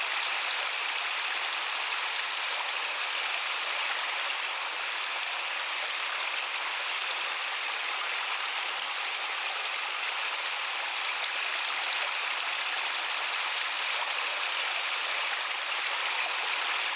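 Water of a garden pond's waterfall cascading over rocks, a steady splashing rush.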